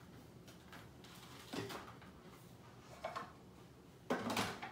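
Food processor pulsed in three short bursts, the last the longest and loudest, blending a thick cream cheese and yogurt filling.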